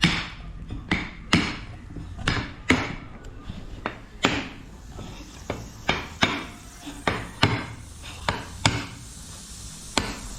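Sealed clay pot of a pottery (testi) kebab struck again and again to crack it open: a string of sharp knocks, about two a second, that thins out, with one last knock near the end.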